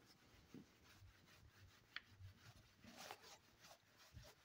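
Faint rubbing of a whiteboard being wiped clean by hand, with a small tick about two seconds in.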